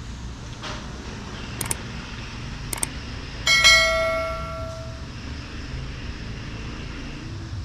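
Sound effects of a like-and-subscribe animation: two quick double mouse clicks about a second apart, then a bright notification-bell ding that rings and fades over about a second. A steady low rumble of outdoor background noise runs underneath.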